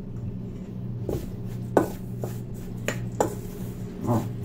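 Metal spoon clinking and scraping against a stainless steel mixing bowl while stirring chopped herbs: about six sharp clinks at uneven intervals, the loudest near the middle.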